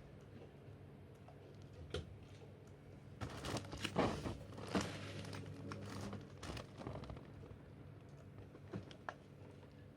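Handling noises: a cluster of sharp clicks and rustles a few seconds in, with scattered single clicks before and after, over a low steady hum.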